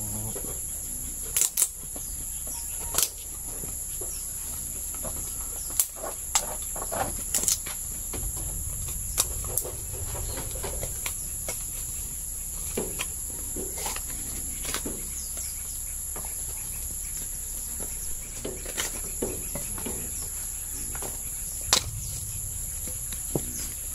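Irregular sharp knocks and clatter of dried coconut shells being handled as the copra meat is pried out of them and tossed aside, a knock every second or few seconds.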